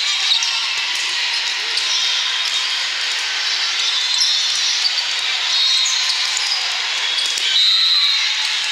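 Indoor volleyball tournament din: a steady hubbub of many voices, with sneakers squeaking on the sport-court floor and scattered smacks of balls being hit.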